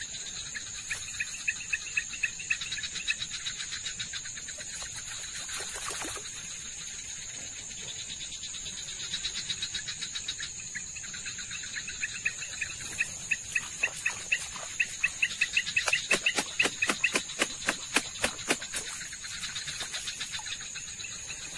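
Night insects and crickets chirring steadily in a high, continuous drone, with pulsed chirping underneath. Two spells of rapid, sharp clicking rise over them, a short one about a second in and a longer, louder one in the second half.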